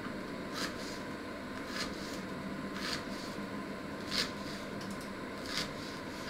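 Small kitchen knife cutting through a peeled onion onto a wooden chopping board: five short, separate cuts about a second apart, over a steady low hum.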